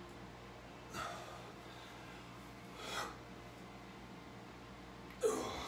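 A man's short, forceful breaths while he holds flexed muscle poses: three breaths about two seconds apart, the last one loudest, over a faint steady low hum.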